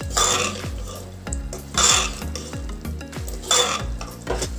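Metal spoon scraping and stirring around the inside of a pressure cooker pot, turning potatoes and fox nuts through a thick tomato masala, in three scraping strokes about a second and a half apart.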